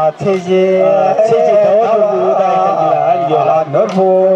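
Ache Lhamo singing: a voice holding long, wavering, ornamented notes, with a short break just after the start.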